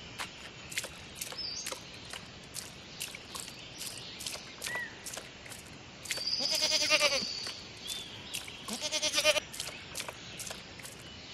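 Cartoon goat sound effect: a goat bleats twice, a long wavering bleat about six seconds in and a trembling one about nine seconds in. Under it runs a steady patter of short clicks and a few small chirps.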